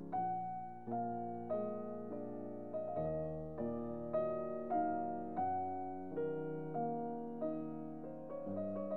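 Background piano music: a gentle melody of single notes struck a little more often than once a second, each one fading away.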